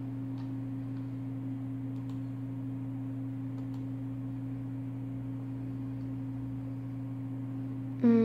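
Steady low electronic hum of two held, unchanging tones.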